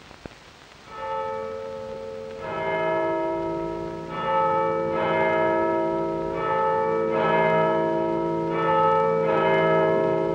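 Church bells ringing, starting about a second in: a new stroke roughly every second, each tone ringing on and overlapping the next.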